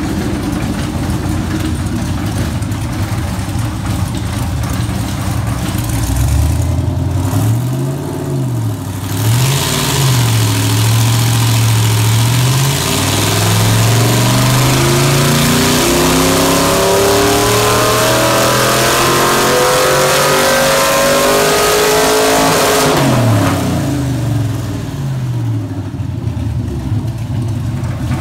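GM 6.0-litre LS V8 (LQ4 with 5.3 heads and a stage 2 cam) running through open exhaust stacks on a hub dynamometer: it idles, is blipped twice, then makes a dyno pull in which the engine note climbs steadily for about ten seconds under load before dropping back to idle near the end.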